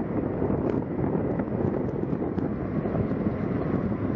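Airbus A320neo taxiing on its turbofan engines, a steady rumble, mixed with wind buffeting the microphone.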